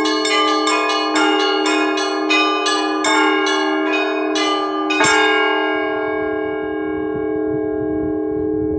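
Church bells rung by hand by a bell-ringer: quick regular strokes on the smaller bells, about two a second, over the steady hum of the larger bells, ending with one loud final stroke about five seconds in. After it the bells ring on and slowly fade.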